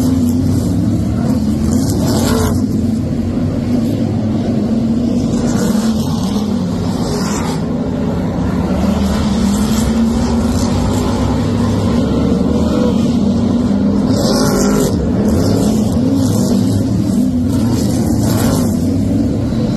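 A pack of Brisca F1 stock cars racing, their V8 engines running loud and continuous under hard throttle. Brief swells every few seconds as cars pass close by.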